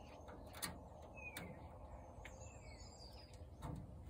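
Faint chirps of small birds, a few short falling notes, over a low steady background, with several soft clicks in between.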